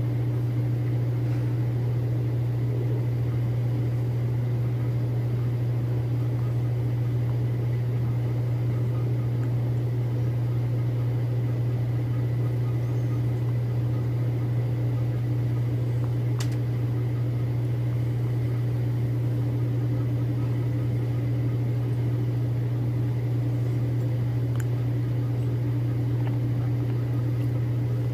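A steady low hum that does not change, with two faint ticks partway through.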